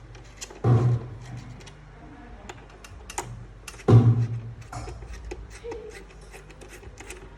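Many light clicks and taps of hardware being handled inside an opened Mac Pro 2019, during a GPU module swap. Two deep bass thuds of background music come about a second in and again about four seconds in.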